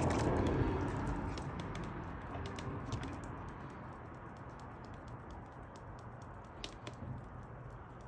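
A gull eating salmon: scattered small clicks and taps of its beak working at the food. A louder rush of noise at the start, with the bird flapping, fades over the first couple of seconds.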